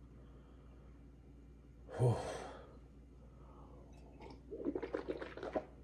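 A person drinking from a glass: a quick run of gulps and swallows in the last second and a half, after a single short loud sound about two seconds in.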